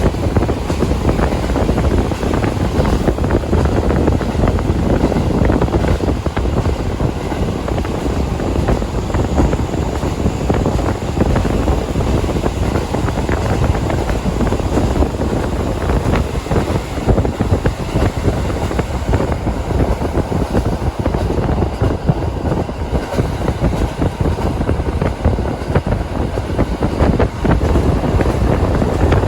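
KiHa 40 diesel railcar heard from on board while running: a steady, loud rumble of the engine and wheels on the rails, with rushing wind noise.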